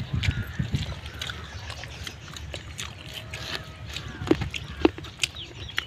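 People eating rice and pork curry by hand, chewing and smacking their lips: a string of short wet clicks, with two sharper ones a little over four seconds in.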